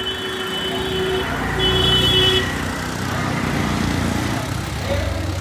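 Motor vehicle traffic running, with a horn-like steady tone sounding twice in the first half, the first long, the second shorter.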